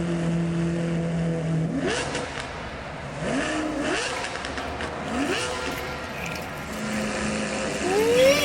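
Vehicle engine sound holding a steady hum, then revving up about five times, each rev a rising whine; the last rev, near the end, is the loudest.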